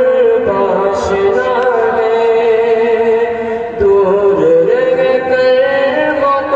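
A man's voice singing a devotional chant, holding long wavering notes, with a short break for breath a little past the middle.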